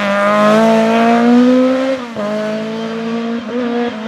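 VW Golf Mk3 rally car engine revving hard as the car accelerates away. The pitch climbs for about two seconds, drops sharply at an upshift, then pulls on with a couple of brief dips.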